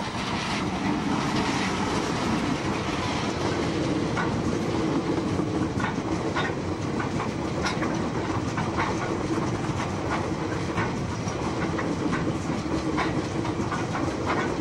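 A Class 59-hauled freight train of coal hopper wagons rolling past close by with a steady rumble. The wheels give sharp clickety-clack clicks over the rail joints, roughly one a second.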